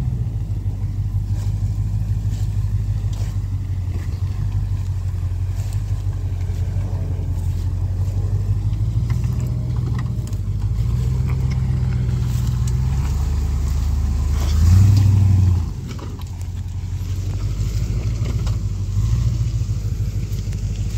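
Range Rover Classic's 3.9-litre V8 engine running steadily at low speed off-road, its pitch rising and falling a little with the throttle. About fifteen seconds in it revs briefly, the loudest moment, then drops back.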